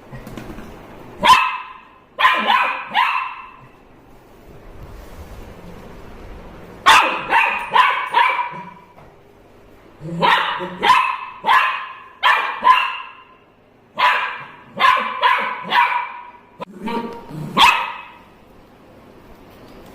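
Golden retriever puppy barking in runs of several quick, high barks, with short pauses between the runs.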